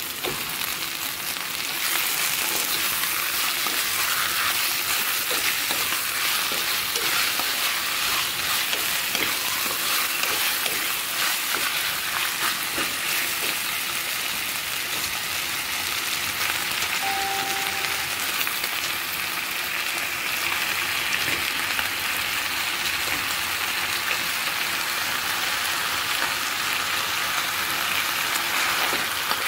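Steady sizzling hiss from chicken pieces cooking in a clay pot on a gas stove.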